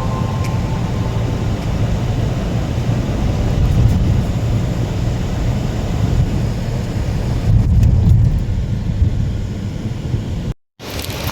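Car driving along a road: a steady low rumble of engine and tyres, which drops out briefly near the end.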